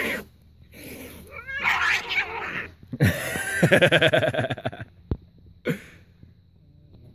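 Two domestic cats fighting, caterwauling: drawn-out yowls that bend up and down in pitch, then a long loud pulsing growl-yowl about three to five seconds in. A sharp click follows, then one short cry.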